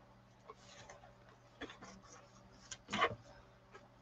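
Faint handling sounds of craft supplies on a work table: scattered light taps and rustles over a faint steady hum, with one louder knock and rustle about three seconds in.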